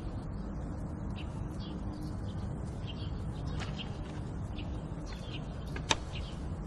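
Small birds chirping in short, scattered calls over a low, steady outdoor rumble, with one sharp click about six seconds in.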